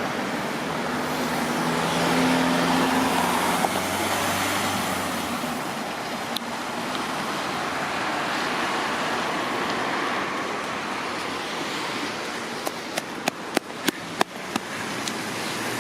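Steady road traffic noise, with a low engine hum in the first few seconds and a run of sharp clicks near the end.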